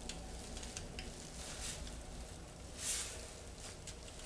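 Faint scraping of a steel punch ground to a sharp point, scribing lines onto an aluminium plate, with a few light ticks in the first second and a slightly louder scrape near three seconds in.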